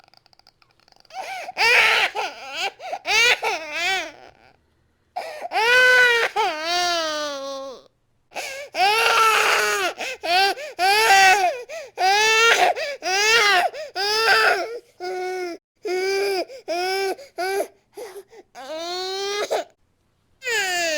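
Infant crying hard: a run of loud, high wails, each a second or so long, broken by short catches of breath.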